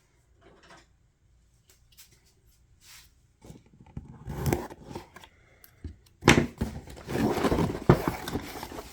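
A box and its packaging being opened and handled: a few faint clicks at first, then rustling and scraping that grow louder in the second half.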